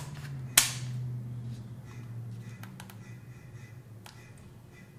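A sharp plastic click about half a second in as the battery is pushed into a DJI Mavic Air drone and latches, then a few faint clicks from the plastic body being handled, over a low steady hum.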